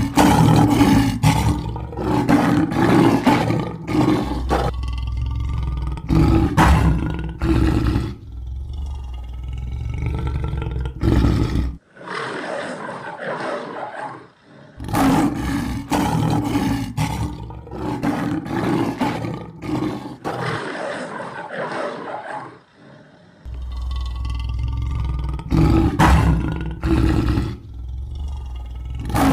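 Lion roaring again and again, a loud run of deep roars. There is a short lull about halfway, and then a similar run of roars follows.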